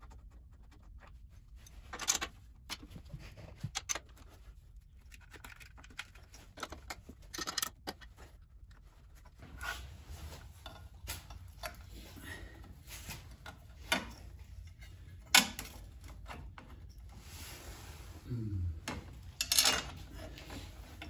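Scattered clicks, taps and rubbing of metal and plastic parts being handled as a fork-mounted wind deflector is fitted to a motorcycle's front fork. A few sharper knocks stand out, about 2 s in, around 15 s, and near the end.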